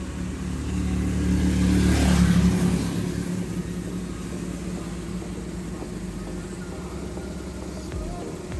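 Motor vehicle engine running, growing louder to a peak about two seconds in and then easing to a steady low hum.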